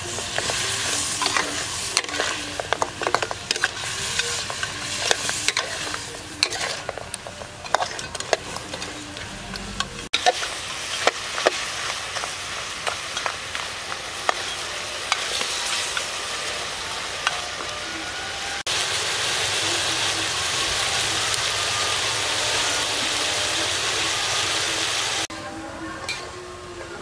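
Pork ribs sizzling as they stir-fry in a steel wok, with a spatula scraping and clicking against the pan. The sizzle drops away near the end.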